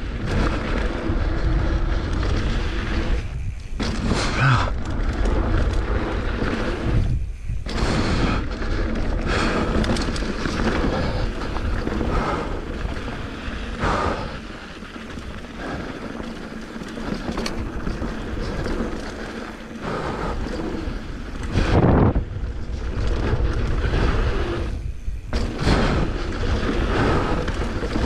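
Mountain bike descending a rough dirt and rock trail: tyre noise over dirt and stones with frequent knocks and rattles as the bike hits bumps, under heavy wind buffeting on the microphone. A harder thump about three quarters of the way through.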